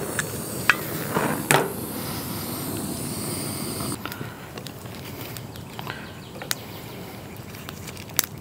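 A handheld torch hissing steadily as it lights wood kindling, stopping suddenly about four seconds in. After that, scattered sharp crackles and pops come from the kindling fire burning among lump charcoal.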